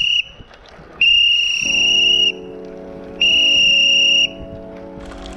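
Whistles on one steady high note: the tail of one just at the start, then two more, each held just over a second. Background music comes in about a second and a half in and runs on under them.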